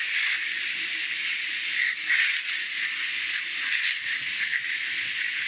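A steady hiss, with a few faint soft rustles from hands working semolina dough.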